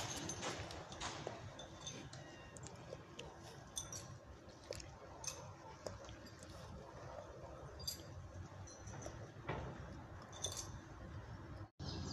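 Dry fallen leaves crackling and rustling with scattered light clicks, with a few faint, brief bird chirps.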